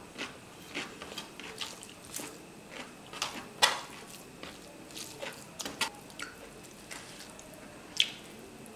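Wet, sticky eating sounds from chewing rice and mutton curry and working the rice by hand: a run of short clicks and smacks, the loudest about halfway through and near the end.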